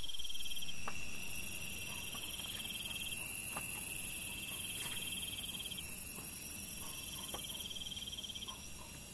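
Crickets trilling steadily at a high pitch, with a few faint ticks scattered through.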